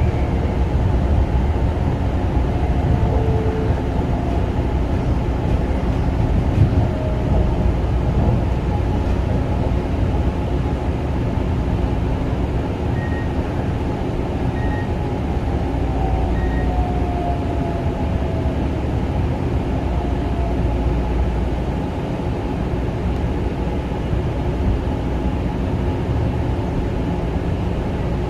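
Long Island Rail Road Kawasaki M9 electric railcar under way, heard from inside the car: a steady low rumble of wheels on rail with an even hum from the train's electrical equipment, and a few faint gliding whines.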